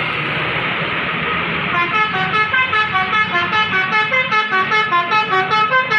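Bus 'telolet' horn playing a fast tune of quick stepped notes, about five a second, starting about two seconds in over steady road noise.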